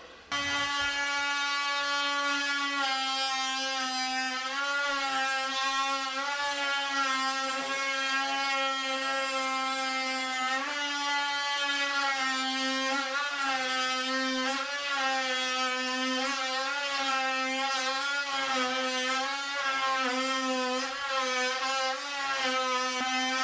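Oscillating multi-tool with a bimetal blade plunge-cutting through sheet vinyl and the quarter-inch underlayment beneath it: a steady high buzz whose pitch dips and wavers slightly as the blade bites into the floor.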